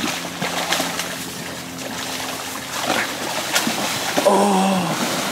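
Irregular water splashing as a large arrowed carp thrashes in the shallows and a man plunges into the creek after it. A short shouted voice comes about four seconds in.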